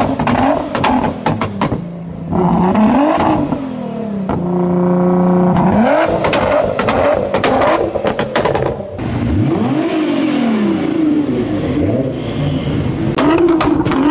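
Nissan GT-R engine being revved, the revs rising and falling several times and held high for over a second near the middle. Rapid crackling pops and bangs come from the exhaust as the revs drop, in clusters at the start, in the second half and near the end.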